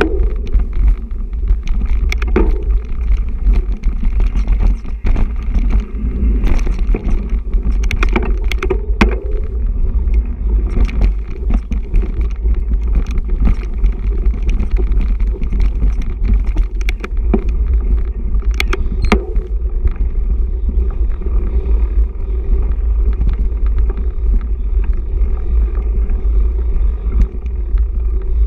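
Mountain bike ridden fast over a dirt and rock forest trail, heard from a camera on the bike or rider: a steady heavy rumble of tyre vibration and wind on the microphone, with frequent sharp clicks and rattles from the bike over rocks and roots, thickest in the first third and again about two-thirds through.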